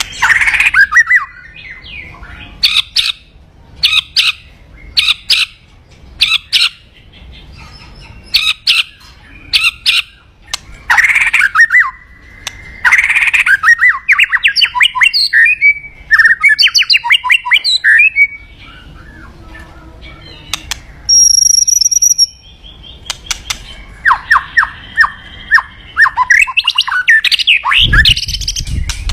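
White-rumped shama (murai batu) in full song: sharp, loud calls and rapid rattling trilled phrases, with a clear high whistle about two-thirds of the way through. A short dull thump comes near the end.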